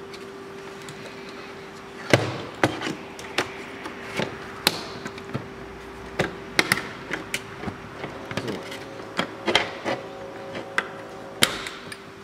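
Plastic dashboard end trim panel of an Audi A4 B7 being pried off by hand: a run of irregular sharp clicks and knocks as its retaining clips snap loose, starting about two seconds in. A steady hum runs underneath.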